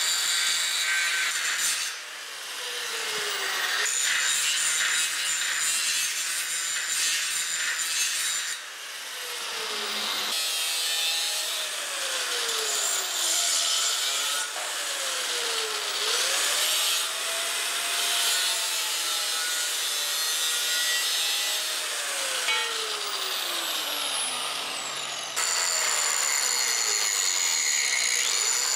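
Milwaukee angle grinder cutting and grinding steel, its motor whine sagging in pitch each time the wheel bears into the metal and climbing back as the pressure eases. The sound breaks off and picks up again abruptly a few times.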